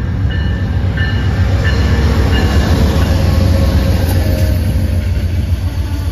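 Amtrak passenger train passing close by, led by a GE P42DC diesel locomotive: a loud low engine rumble and wheel noise as the passenger cars roll past. In the first two seconds a short ring repeats about every two-thirds of a second.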